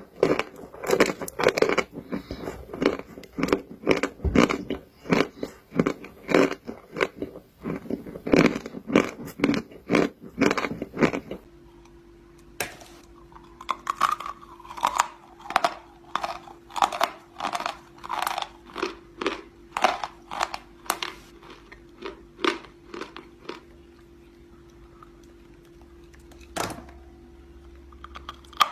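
Close-miked chewing and crunching of chalk. The first part is dense, rapid crunching; about 11 seconds in it gives way to slower, evenly spaced chews, roughly one or two a second over a faint steady hum, thinning out near the end with one sharp click.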